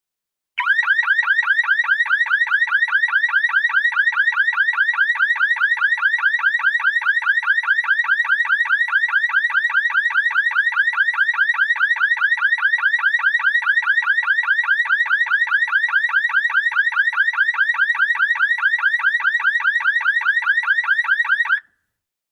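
Electronic alarm-type warble: a rapid, even train of short pitched chirps, several a second, starting about half a second in and cutting off suddenly near the end.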